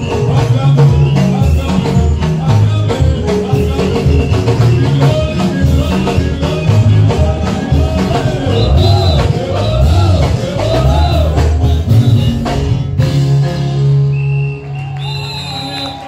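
Live gospel praise-and-worship music: a group of singers over a band with bass, drums and keyboard, with a steady beat. About thirteen seconds in the drums stop and a held chord remains.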